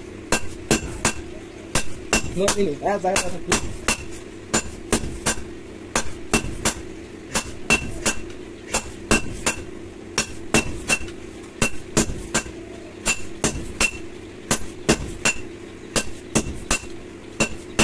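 Hand hammer forging a red-hot steel blade on a railway-rail anvil: a steady run of sharp metallic blows, about two a second, each with a bright ring.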